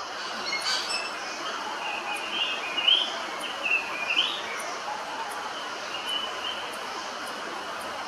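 Common hill myna calling: a short run of loud whistled notes and rising glides in the middle, over a steady hiss of background noise.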